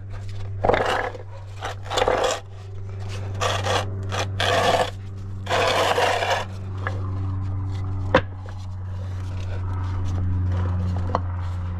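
Hydraulic jack being pumped to raise a pickup truck: a series of scraping strokes in the first six or seven seconds, then a couple of sharp clicks. A steady low hum runs underneath throughout.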